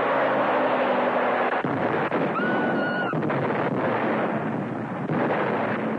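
Film sound effect of a rockslide set off by a blast: a continuous heavy crashing of falling rock and debris, with a car engine running under it for the first second and a half. A brief high held shrill tone sounds over the crash about two seconds in.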